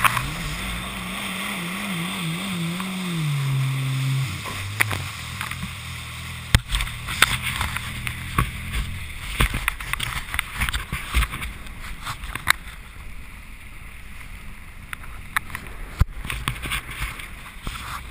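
Personal watercraft engine running with its pitch wavering up and down, stepping down about three and a half seconds in and fading out soon after. Then water slaps and splashes against the hull, with wind on the microphone.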